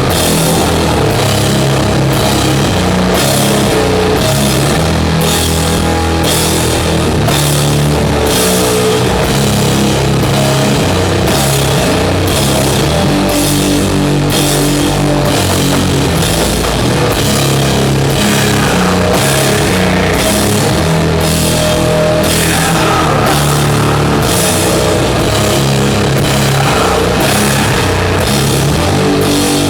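Live doom metal band playing loud, with heavy distorted guitars and bass holding low chords and the drummer striking the cymbals on a steady beat. Higher bending notes come in past halfway.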